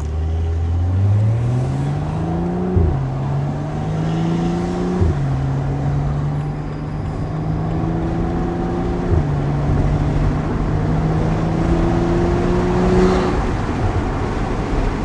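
BMW N55 turbocharged straight-six breathing through a VRSF catted downpipe, heard from inside the cabin with the windows down, accelerating through the gears. The engine note climbs and drops back at upshifts about three, five and nine seconds in, then rises slowly at a fairly steady pitch before easing off near the end.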